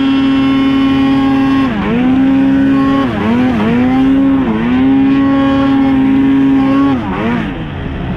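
Snowmobile engine running at high, steady revs. The revs dip and climb back about two seconds in, twice more between three and five seconds in, and again near the end, where it gets quieter.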